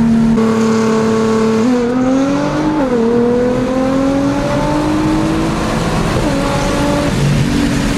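Tuned Nissan GT-R's twin-turbo V6, heard from inside the cabin, pulling hard under full throttle on a rolling launch. The note holds steady at first, then climbs, drops sharply at an upshift just under three seconds in, and climbs again for about four seconds before levelling off near the end.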